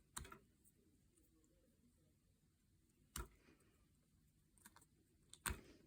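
Near silence broken by a few faint, sharp clicks of small plastic model-kit parts being handled on a work surface.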